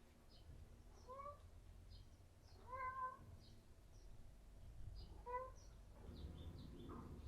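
A cat meowing three times, short calls spaced a couple of seconds apart, the middle one the longest and loudest.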